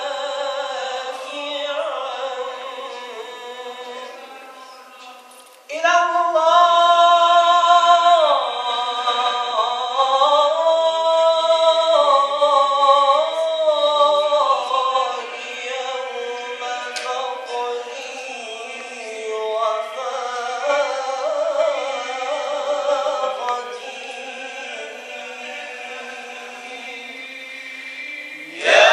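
Male voices singing tawashih, Islamic devotional chant, in long held and ornamented notes. The singing fades away about five seconds in, comes back in suddenly and loud, and softens again about halfway through.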